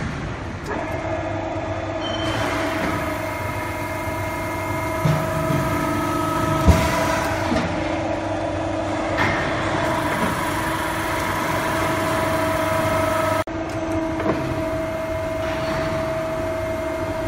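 QC12K hydraulic shearing machine powered up and running idle: a steady motor hum with a few clear tones that comes up under a second in. A single sharp knock about seven seconds in, and a brief break in the sound near the end.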